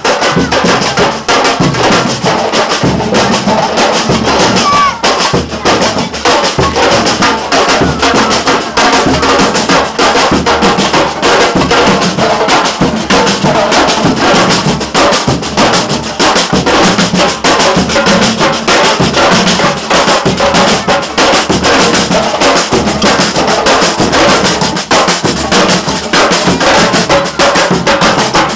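Batucada drum group playing together, many drums beating a loud, dense, steady rhythm.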